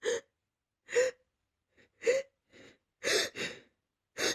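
A woman's short, sharp gasping in-breaths, about six of them roughly a second apart, as a sneeze builds up.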